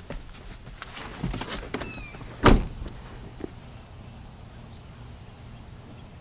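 Honda car door shut once, a single heavy thunk about two and a half seconds in, after a few small knocks and rustles of someone climbing out of the driver's seat.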